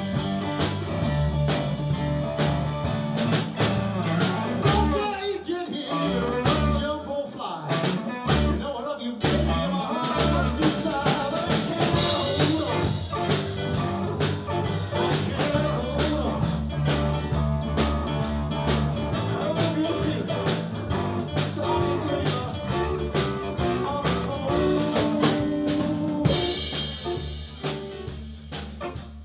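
Live blues band playing: electric bass, electric guitars, keyboard and drum kit. About five seconds in the band drops to short stop-time stabs for a few seconds, then the full groove comes back in, easing off a little near the end.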